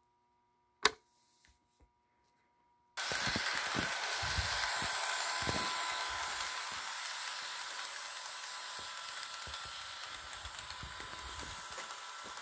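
A single sharp click about a second in, then near silence. About three seconds in, an HO scale Kato EMD GP35 model locomotive starts running: a steady electric-motor whine with irregular clicking of wheels on the track, slowly fading as the train moves away.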